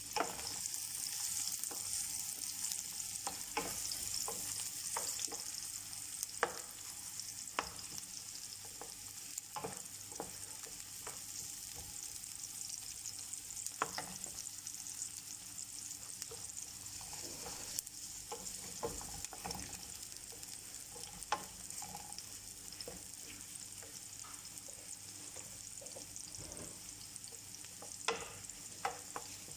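Food sizzling steadily in hot oil in a pan, with a spatula or spoon stirring and now and then clicking and scraping against the pan.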